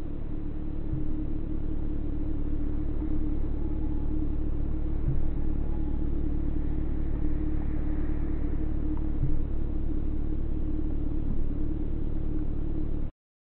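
Steady low rumbling drone with a held hum above it and a soft low pulse about every four seconds. It swells in at the start and cuts off abruptly near the end.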